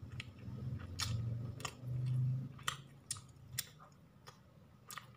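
A person chewing a mouthful of grilled chicken close to the microphone, with sharp mouth clicks scattered throughout and a low muffled hum in the first half.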